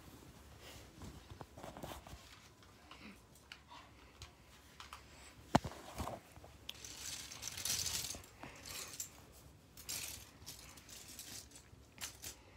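Small plastic clicks and clatters of Lego minifigures being handled, with one sharp click about five and a half seconds in and a stretch of rustling a couple of seconds later.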